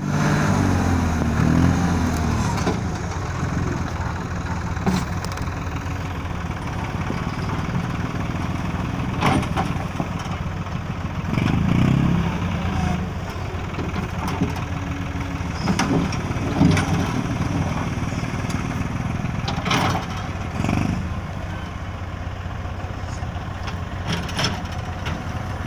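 Farm tractor engine running as its front-end loader digs into a pile of broken stone and lifts the bucket, with a handful of short knocks from rock striking the steel bucket.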